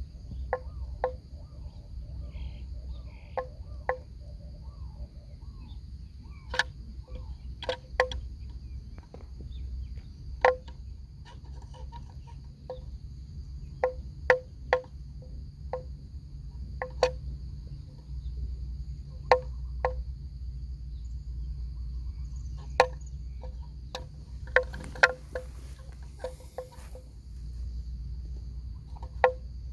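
Irregular sharp hollow knocks and clonks from a penned herd of water buffalo, about one or two a second and thickest near the end, over a steady high insect drone and a low rumble.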